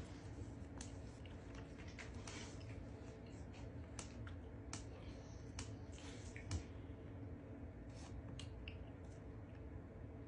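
Faint scattered clicks and soft squishy mouth sounds of someone chewing a tamarind-flavoured gummy candy, with a slightly louder click about two-thirds of the way through.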